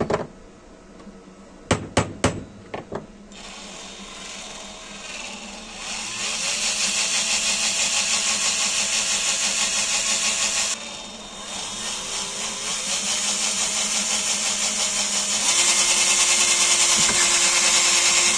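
Hyundai cordless drill boring holes through a laser mounting plate: the motor winds up about three seconds in and runs under load, drops off briefly about eleven seconds in, then speeds up again and runs loudest near the end. A few sharp clicks come first.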